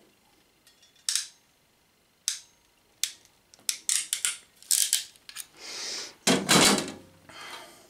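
Ratchet crimping pliers clicking as they crimp a blue insulated connector onto a wire: a string of sharp clicks through the first five seconds. Near the end comes a louder rustle and clatter from rummaging in a plastic tub.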